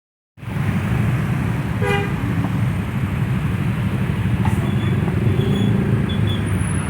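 Steady low rumble of vehicle engines, with a short toot of a bus telolet horn about two seconds in and a fainter horn note around five seconds.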